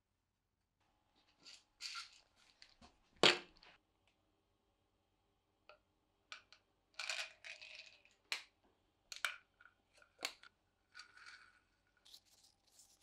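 Close handling sounds of a small capsule being opened and a rolled slip of paper being unrolled: irregular crinkles and rustles, with one sharp click a little over three seconds in.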